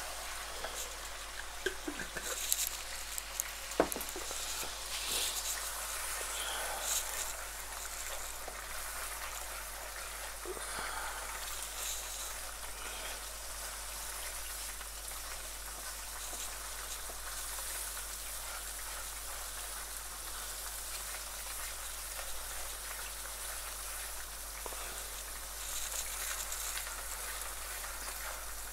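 Onions and ground spices frying in oil in a wok: a steady sizzle, with a few sharp clicks from the wooden spoon stirring in the first few seconds.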